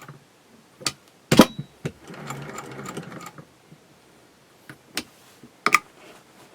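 Cast-iron Singer 201K sewing machine stitching in short runs: it stops, gives several sharp clicks and knocks as it is handled (the loudest about a second and a half in), runs again for about a second, then stops with a few more sharp clicks near the end.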